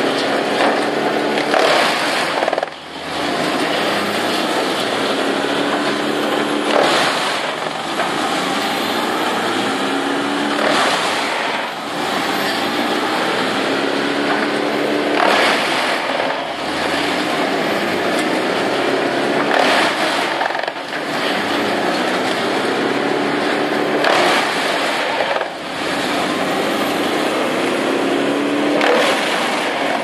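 Bandit 18-inch wood chipper chewing through a large log, with a constant loud grinding and chipping. About every four to five seconds the chipping surges louder, then the engine pitch sags and climbs back, as the engine labours under the log and recovers.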